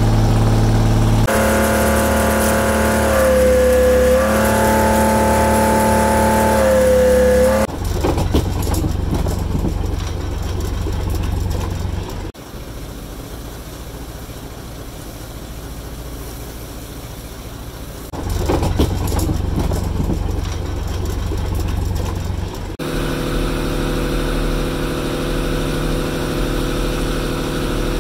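Small fishing boat's engine running. For the first several seconds it makes a strong pitched drone that dips in pitch briefly and recovers. It then turns rough and noisy, quieter in the middle, before a steady engine note returns near the end.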